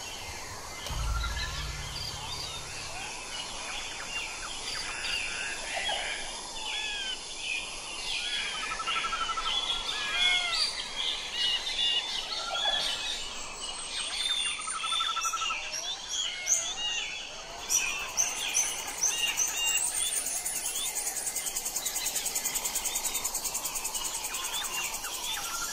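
Forest ambience full of wild birds singing and calling: many overlapping chirps, whistles and short trills. There is a brief low rumble about a second in, and a fast, evenly pulsing high call in the last few seconds.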